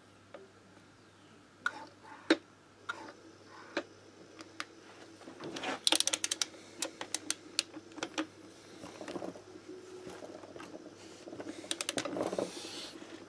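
Ratchet of a click-type torque wrench clicking in quick runs, about six seconds in and again near the end, with scattered metal taps between, as a fastener on an AM6 moped engine is tightened to its torque.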